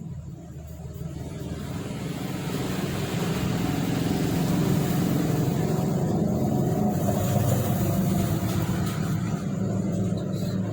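Motor vehicle engine running, growing louder over the first few seconds and then holding steady.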